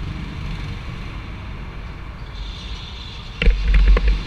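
Onboard go-kart noise: a steady low rumble and hiss as the kart rolls slowly in the pits. About three and a half seconds in come loud, heavy buffeting and sharp knocks on the kart-mounted microphone.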